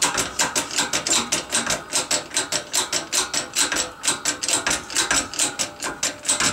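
Hand-pumped hydraulic jack in a shop press being worked to push a wheel hub out of its steering knuckle, making rapid, even clicking at about six clicks a second.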